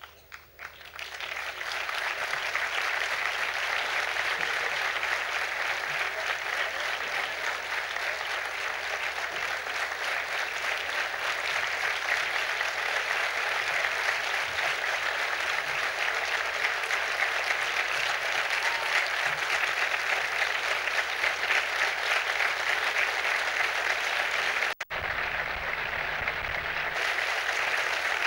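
Audience applauding, swelling within the first couple of seconds and then holding steady, with a momentary break about three seconds before the end.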